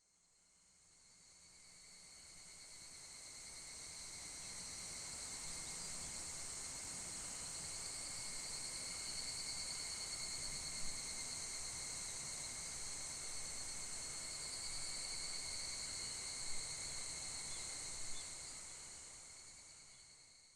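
Insect chorus, a steady shrill chirring, fading in over the first few seconds and fading out near the end, with a few faint ticks.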